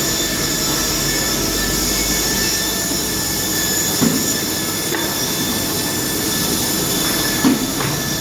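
Industrial woodworking machine running loud and steady, with a high whine over its noise and a couple of short knocks, one about halfway through and one near the end.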